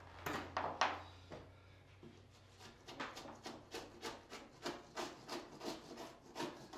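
Stiff-bladed wall scraper scraping soaked metallic wallcovering and backing off primed drywall: a few strokes at first, then a steady run of about three rasping strokes a second. The foil-backed metallic layer is not coming off cleanly, leaving bits stuck to the board.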